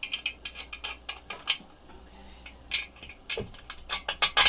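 Irregular light metallic clinks and taps of tools and hardware as the base of an aluminum compression post is fitted into place, with a quick, louder cluster near the end.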